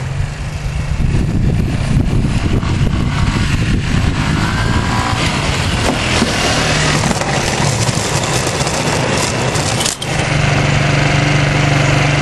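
Yamaha Breeze ATV engine running under throttle with a dense rushing noise over it. About ten seconds in the sound drops out briefly, then the engine settles into a steady idle.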